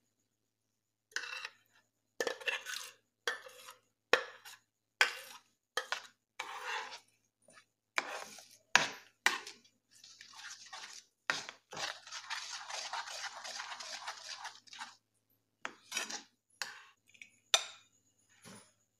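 A spoon scraping and stirring garlic paste into oil in a nonstick frying pan. It starts as a run of short strokes, then about three seconds of steady stirring, and there are a few sharper clinks near the end.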